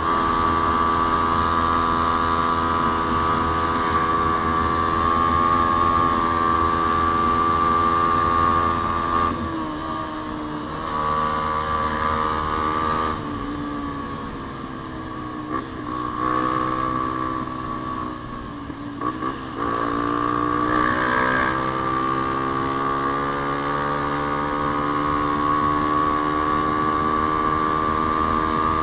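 Yamaha Sniper 150's single-cylinder four-stroke engine through an aftermarket JVT exhaust, running at high, steady revs under way. The revs drop about a third of the way in and again a little later, sag and wander through the middle, then climb back and hold steady.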